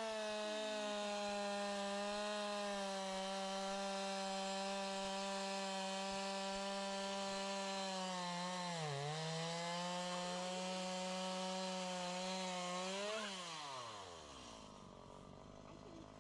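Two-stroke chainsaw held at full throttle while felling a tree, its pitch dipping briefly about nine seconds in as the chain bogs under load and then recovering. About thirteen seconds in the throttle is released and the engine note falls away.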